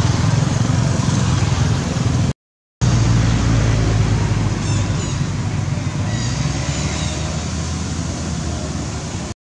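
Steady road traffic noise, the low hum of passing cars and motorbikes; it cuts out completely for about half a second a little over two seconds in.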